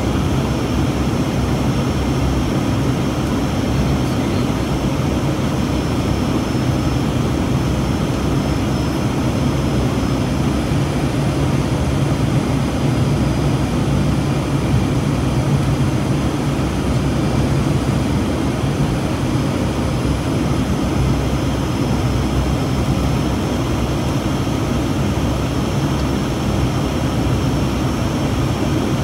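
Steady engine drone and airflow noise inside the cabin of an aircraft on its approach to land, with a low hum and a faint high whine holding level throughout.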